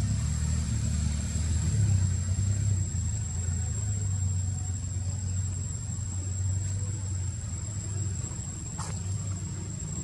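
Outdoor ambience: a steady low rumble with a thin, steady high insect drone over it, and one short click near the end.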